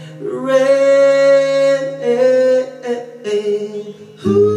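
A man singing the long, held word "rain" over an acoustic guitar, in a solo acoustic cover of a pop ballad. Near the end the level dips and then a louder note comes in.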